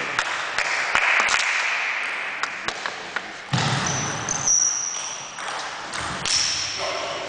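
Table tennis rally: the ball clicks sharply off bats and table about two or three times a second. In the second half, shoes scuff and squeak on the sports-hall floor.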